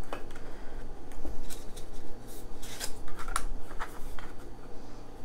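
Dry, stiff lasagna noodles being handled and laid into a baking dish: scattered light clicks and taps as the rigid sheets knock against each other and the dish.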